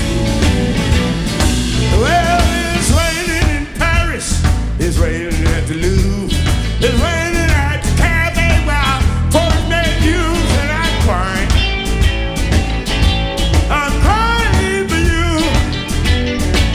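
Live electric blues band playing, with drums, bass and electric guitars, and a lead vocal over the band from about two seconds in.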